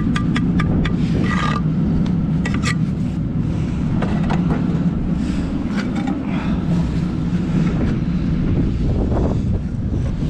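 Steel brick trowel tapping and scraping on brick and mortar: a quick run of sharp taps in the first few seconds and a few more a little later, over a steady low rumble.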